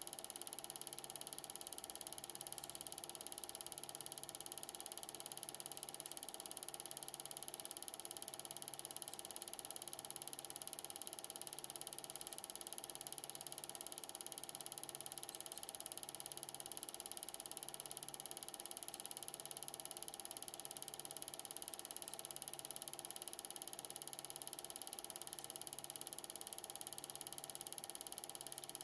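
Steady mechanical whir of a film projector running, with a faint low pulse repeating a little less than once a second.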